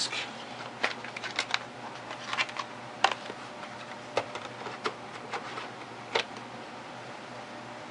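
Irregular sharp plastic clicks and clatter from handling an Iomega Jaz disk cartridge and its drive, a dozen or so, stopping about six seconds in.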